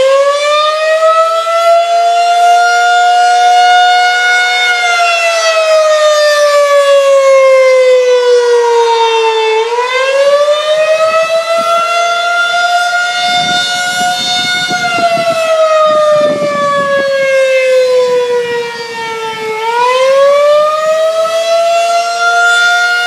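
Federal Signal 2001-SRN outdoor warning siren sounding the attack signal: a loud wail whose pitch slowly rises and falls, climbing three times and dropping twice in cycles of about ten seconds.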